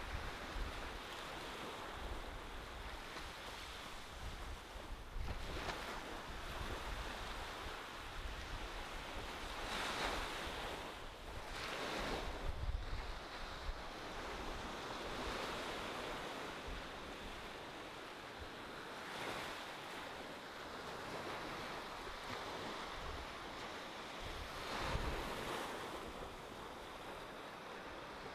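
Small ocean waves breaking and washing up on a sandy beach: a steady hiss of surf that swells every few seconds as each wave comes in. A low rumble of wind buffets the microphone.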